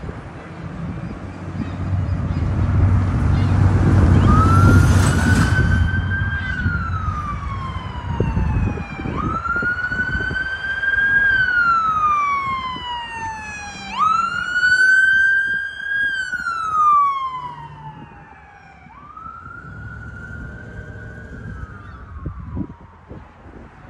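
Emergency vehicle siren wailing: slow cycles that rise in pitch and then fall away, one about every five seconds, starting about four seconds in. Before it, a loud low rumble fills the first several seconds.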